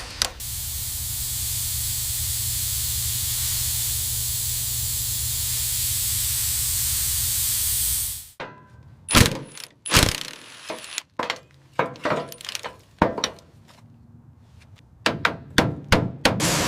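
A steady spraying hiss with a low rumble under it, which cuts off suddenly about eight seconds in. A series of irregular sharp knocks and clunks follows, like tools and parts being handled.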